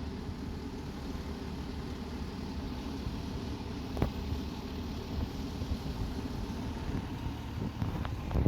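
Fire truck's engine running steadily at low revs, with a sharp click about four seconds in and a fainter one near the end.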